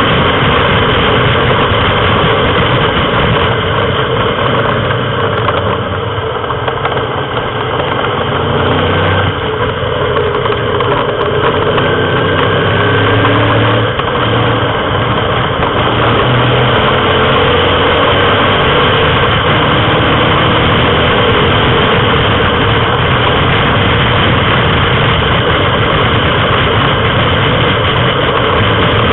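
Racing car engine under hard throttle, heard from on board with heavy wind rush. It runs loud and steady, easing briefly a few times between about 6 and 14 seconds in as the driver lifts or changes gear.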